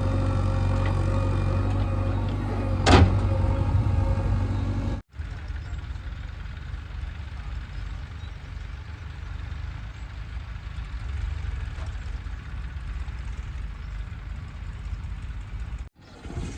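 Heavy diesel engine running steadily, with a sharp loud burst about three seconds in. The sound cuts off abruptly about five seconds in and again near the end; in between it is quieter and rougher.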